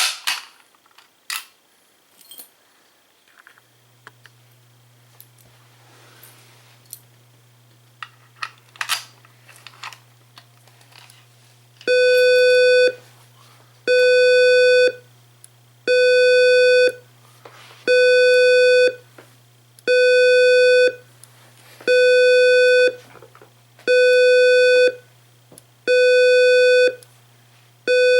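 Simplex 2902-9732 fire-alarm speaker sounding a buzzy, mid-pitched tone in a slow pulsing cadence, about one second on and one second off, starting about twelve seconds in. Before that there are scattered clicks and a faint low hum.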